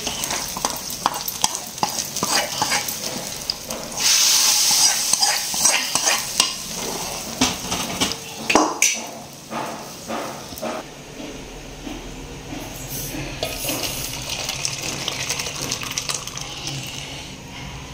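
Sambar being tempered: a hot seasoning of oil and mustard seeds goes into the pot and sizzles loudly for a second or two about four seconds in. Around it, a ladle stirs and knocks against the metal pot.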